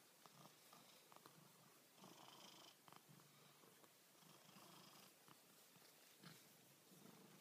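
Domestic cat purring faintly while being stroked, the purr swelling and fading in stretches of a second or two.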